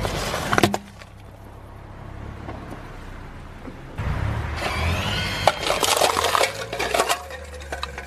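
A car tyre rolls over and crushes plastic cups on snow: a dense run of plastic cracking and crunching with a brief squeak, over the car engine's low running. Earlier, about half a second in, a single sharp pop comes as the tyre runs over a small ball.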